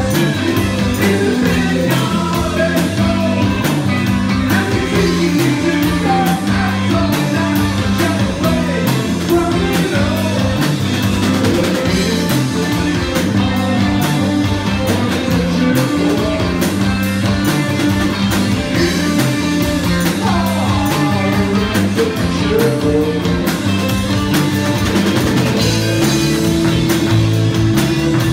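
A rock band playing live: electric guitar, drum kit and a man singing into a microphone.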